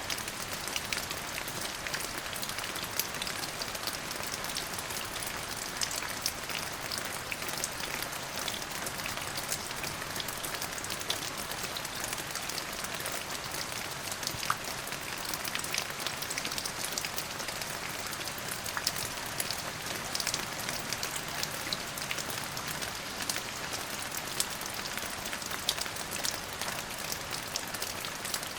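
Steady rain falling, an even hiss with many distinct drops ticking on a surface.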